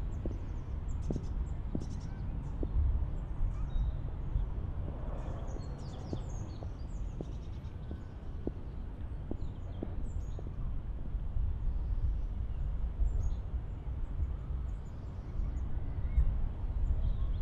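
Outdoor park ambience: birds chirping over a steady low rumble. Footsteps on a path tread about once a second through the first ten seconds or so.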